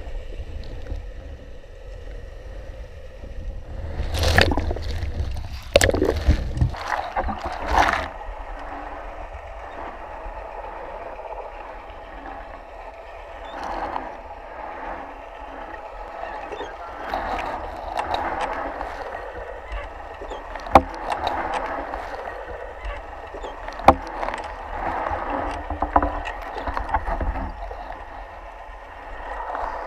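Muffled underwater sound in a canal: a steady low rumble under gurgling water movement, with a cluster of louder knocks and splashes about four to eight seconds in and two sharp clicks a few seconds apart later on.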